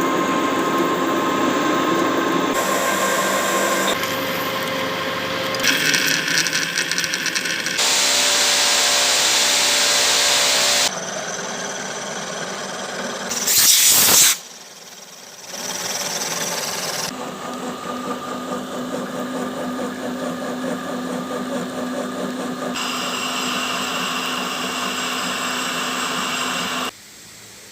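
Metal lathe machining an EN24T steel shaft, heard as a run of short clips: the machine running with cutting hiss and whine, the sound changing abruptly every few seconds. About 13 seconds in there is a loud hiss for about a second.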